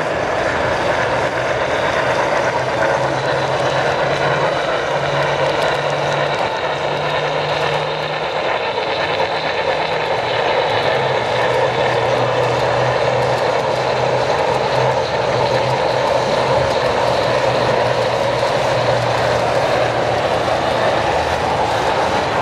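Steady background noise of a large exhibition hall, with a low hum that shifts between two pitches.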